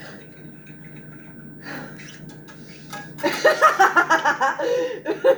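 A low steady hum, then from about three seconds in loud wordless vocal sounds from one or more people.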